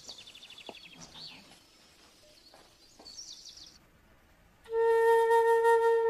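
Small birds trilling and chirping faintly, two quick runs of calls. About two-thirds of the way in, a loud flute enters and holds one steady note.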